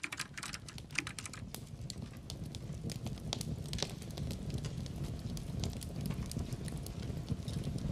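Wood fire crackling in a fireplace: irregular sharp snaps and pops over a low steady rumble.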